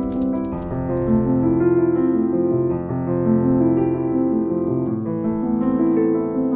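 Background music: a piano piece of held, overlapping notes.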